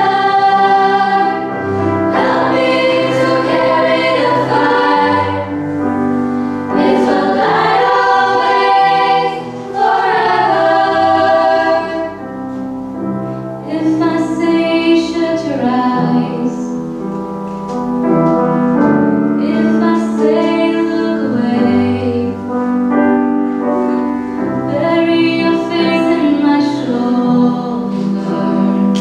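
Girls' choir singing in harmony, accompanied on grand piano.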